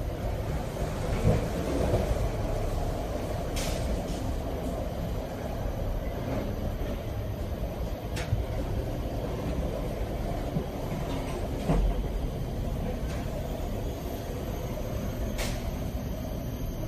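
Cable car running with a steady low rumble, broken by a few sharp clicks and a couple of brief knocks.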